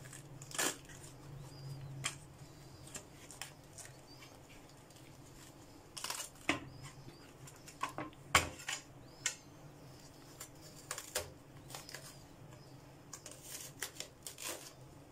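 Crisp raw cabbage leaves being pulled and snapped off a whole head by hand: a string of irregular crackles and sharp snaps. Near the end a knife cuts at the core against the plastic cutting board.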